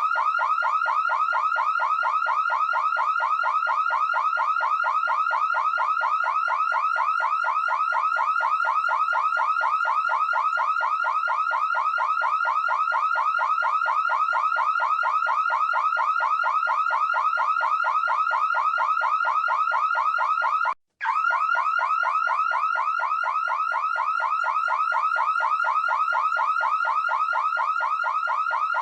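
Electronic car or home alarm siren sounding a rapid, evenly repeating chirp. It cuts out briefly once, about two-thirds of the way through, then carries on unchanged.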